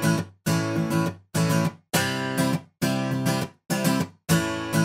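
Background music: short, choppy chords about twice a second, each broken off by a brief silence.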